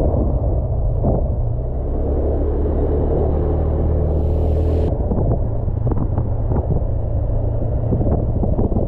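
A motor engine running steadily with a low hum and some rattling knocks. There is a brief hiss about four seconds in.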